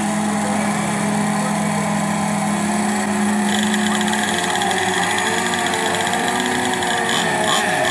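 Gasoline two-stroke engines of radio-controlled racing boats running steadily. A higher buzzing engine note joins about halfway through.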